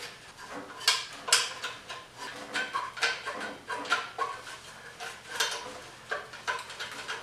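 A 9/16 wrench working the nuts on the exhaust-pipe flange bolts under the inline-six exhaust manifold: irregular metallic clinks and clicks, about two a second, as the wrench strikes and turns against the bolts and pipe.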